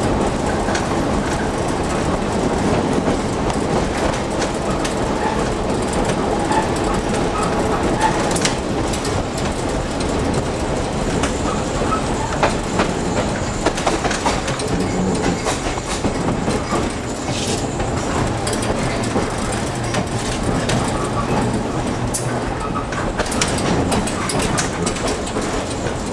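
Peter Witt streetcar running along the track, heard from inside the motorman's cab: a steady rumble of wheels and motors with scattered clicks.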